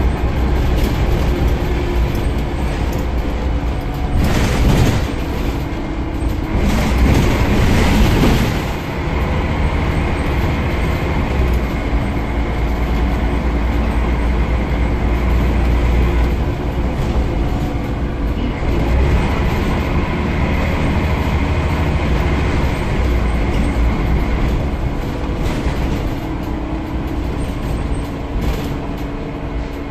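Scania CN94UB single-decker bus heard from inside the saloon while under way: its 9-litre five-cylinder diesel engine drones steadily, with a low rumble and a whine that rises and falls. Louder noisy surges come about four and seven to eight seconds in.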